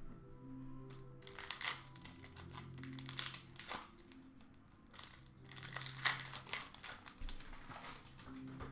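Hands crinkling and rustling hockey trading cards and their packaging in two bouts, over soft background music.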